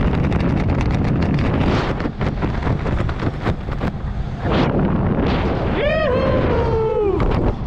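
Wind buffeting the microphone of a camera under an open parachute canopy: a heavy rumble with crackling gusts. About six seconds in, a person gives a high whoop lasting about a second that falls in pitch.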